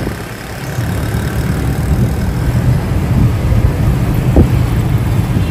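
Steady low rumble of road and traffic noise from a vehicle driving through city traffic, with one brief chirp a little over four seconds in.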